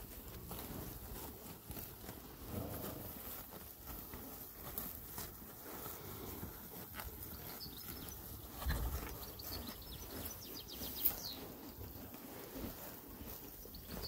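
Horses grazing close by, tearing and chewing grass and hay with a soft, irregular crunching, with a single dull thump about nine seconds in.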